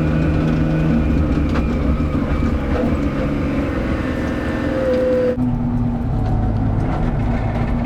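Tractor engine running steadily while pulling a manure spreader. About five seconds in, the sound changes abruptly to a lower, duller engine note.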